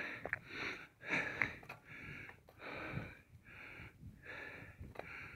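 A cyclist breathing hard in a steady rhythm, close to the microphone, in and out about every two-thirds of a second, with a few faint clicks.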